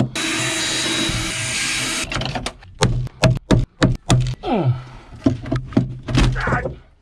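A hatchet chopping and prying at a boat cabin's interior woodwork. A rough rushing, tearing noise runs for about two seconds, then a quick irregular run of sharp knocks and cracks with a short creak.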